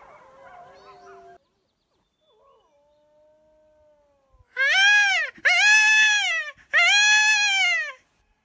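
A wolf pack's chorus of overlapping, wavering howls is faint and far off, stopping about a second and a half in, then one faint drawn-out howl follows. From about four and a half seconds in, a man howls like a wolf three times, loud and close, to call the pack in. Each howl is a short rise and fall about a second long.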